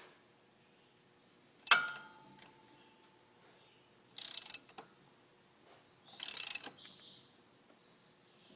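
Hand tools working on an engine during a valve adjustment. A sharp metal clink rings on briefly, then come two short rasping, ratchet-like bursts about two seconds apart.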